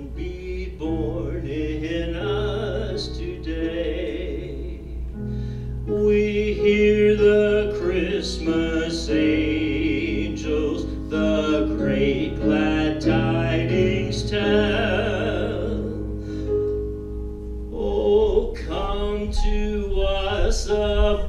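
A man singing a slow song into a microphone over instrumental accompaniment with long held notes, amplified through the church's sound system.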